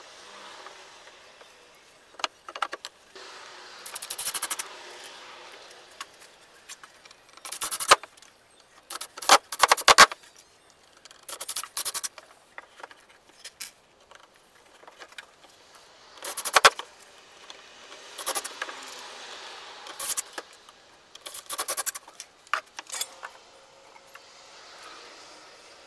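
Workshop handling noises: irregular clatters, knocks and scrapes as pieces of wood are fitted, set down and moved, with several sharper knocks among them.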